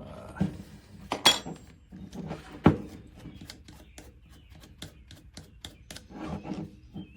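Hands handling an oscillating multi-tool blade and its packaging: a run of small plastic and metal clicks and rustling, with two louder knocks, a little over a second in and near three seconds in.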